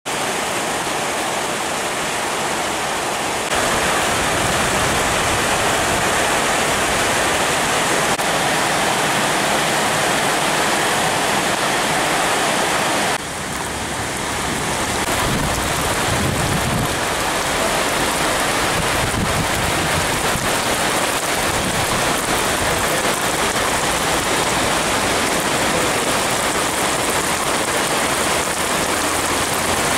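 Heavy downpour: a loud, steady hiss of rain, whose character shifts abruptly twice, about 3.5 and 13 seconds in. A low rumble comes and goes around the middle.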